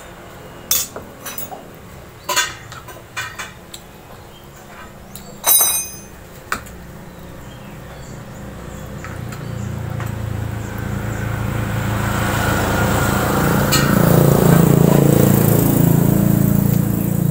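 A metal spoon clinks sharply against a glass bowl several times. Then the sound of a vehicle engine passing builds up over several seconds and is loudest near the end.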